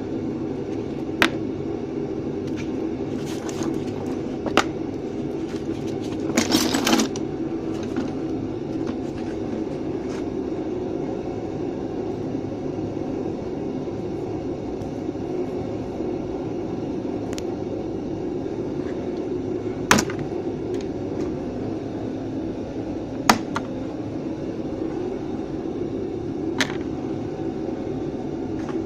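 A steady fan-like hum, with a handful of sharp clicks spread through it and a short clatter about six seconds in.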